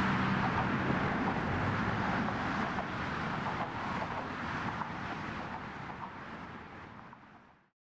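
City traffic noise with wind: an even rush of passing cars that fades out gradually and goes silent about seven and a half seconds in.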